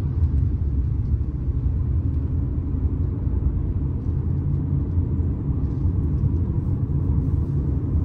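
Steady low road and engine rumble of a moving car, heard from inside the cabin.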